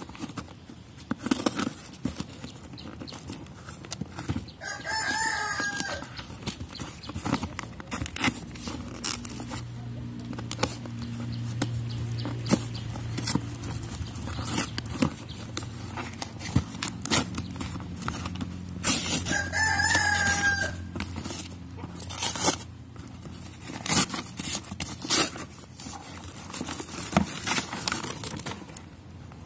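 Hands and a knife cutting packing tape and tearing and handling a paper-wrapped cardboard parcel, with scattered clicks, crinkles and rustles. A rooster crows twice in the background, about five seconds in and again at about twenty seconds.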